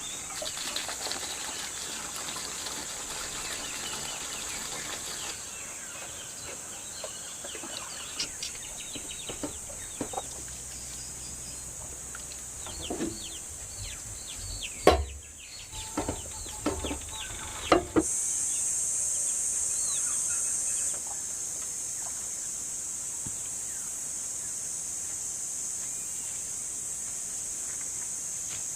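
Chickens clucking in a rural yard over a steady high-pitched hiss, with a few sharp knocks about halfway through.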